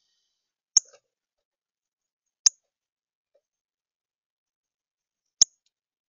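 Northern cardinal at a seed feeder making three sharp, high ticks, the first about a second in, the next two about a second and a half and three seconds apart.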